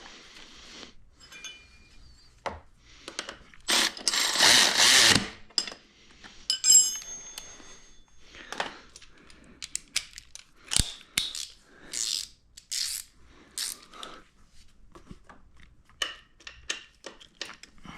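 Hand work on small metal parts and tools: scattered clicks, taps and clinks as parts are fitted and bolts started, with a longer noisy burst lasting about a second and a half around four seconds in.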